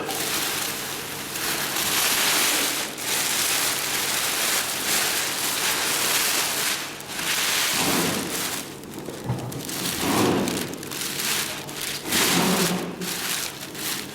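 Stiff sail cloth rustling and crinkling as it is handled and fed through a long-arm zigzag sewing machine, in uneven swells, over a faint steady machine hum.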